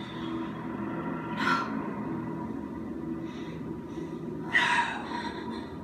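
A person's breathing: two sharp, breathy gasps, one about a second and a half in and a louder one near the end, over a low steady hum, heard through a television's speaker.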